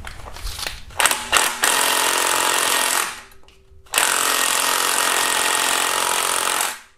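Cordless power tool running on a 12 mm socket against a tight AC compressor mounting bolt, in two rattling bursts of about one and a half and two and a half seconds. The bolt is not coming loose, which the mechanic puts down to a weak tool battery.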